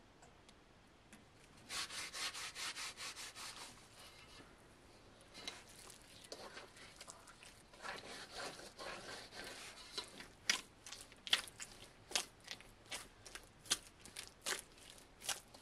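Bread dough being kneaded by hand in a metal bowl: rubbing and pressing of the dough, turning from about ten seconds in into regular sharp slaps, about two a second.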